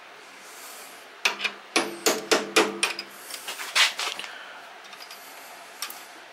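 Steel hammer tapping a punch against a roll pin in a John Deere 826 snow thrower's wheel drive, to knock the pin out. A quick series of about ten sharp, ringing metal taps over roughly three seconds, then one more tap a second and a half later.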